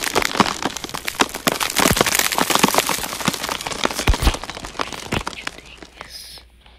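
Bone-cracking sound effect: rapid, irregular cracks and snaps that thin out and fade away near the end.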